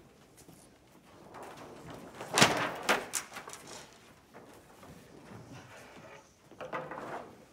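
A quick cluster of sharp knocks or bangs a little over two seconds in, the loudest sound, followed by faint shuffling and handling noise.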